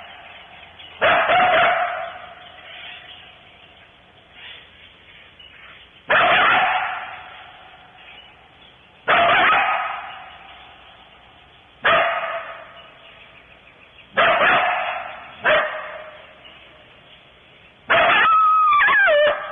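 Coyote barking: seven sharp barks a few seconds apart, each trailing off in an echo. Near the end a bark breaks into a wavering, yipping howl.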